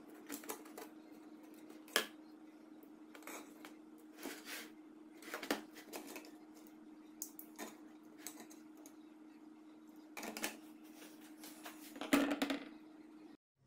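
Scattered clicks and light knocks from handling the opened metal case of a power inverter on a wooden table, the loudest cluster near the end, over a steady low hum.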